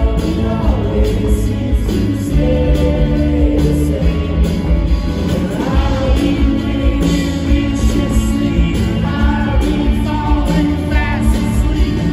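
Rock band playing live with singing: electric guitars, bass, drums and keyboard under lead and backing vocals, over a steady drum beat.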